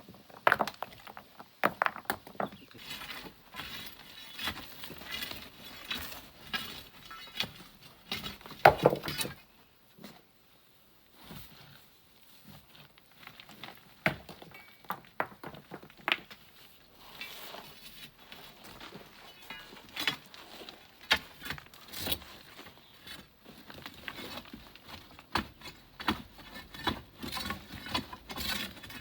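Pebbles and small stones clinking and clattering in irregular clicks and knocks as a bed of sand and pebbles is mined. The loudest knock comes about nine seconds in, followed by a short lull.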